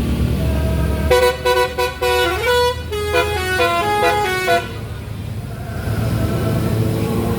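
A bus's telolet horn, an old-style Basuri multi-tone horn, plays a quick tune of stepped notes for about three and a half seconds, starting about a second in. A bus engine runs low underneath.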